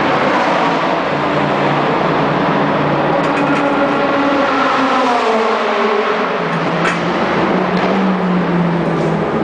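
Racing car engines running in the pit lane and on the track. About halfway through, one engine's note falls in pitch, then a steady engine note holds.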